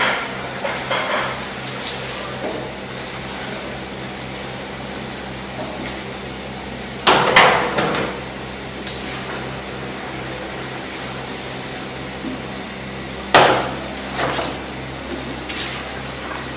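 A metal ladle clanking against a large steel cooking pot and tray as boiled meat is lifted out. There are two loud ringing clangs, about seven and thirteen seconds in, with lighter knocks between them, over a steady low hum.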